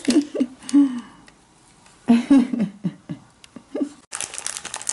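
A child makes short wordless vocal sounds, a few brief murmurs with a pause between. About four seconds in, a thin plastic wrapper starts crinkling continuously.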